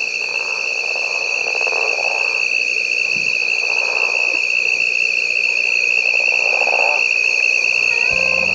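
Insects calling at dusk: a steady, slightly wavering high trill, with lower calls swelling and fading every second or so. Music notes come in near the end.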